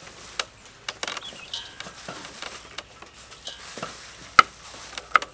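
Plastic-gloved hands mixing and squeezing shredded green papaya in a metal tray: an irregular wet, crackling rustle with scattered sharp clicks, the loudest two near the end.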